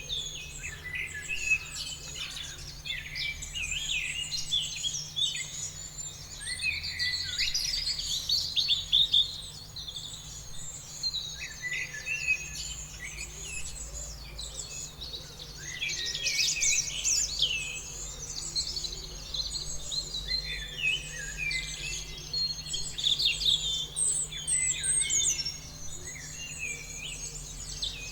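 Several songbirds chirping and trilling together in a dense, overlapping chorus, over a faint steady low hum.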